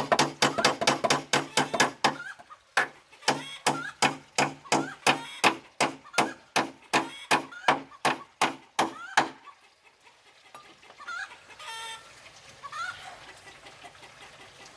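Rapid striking on wood, about four blows a second with a short break about two seconds in, stopping a little after nine seconds. Chickens clucking, heard between the blows and then on their own.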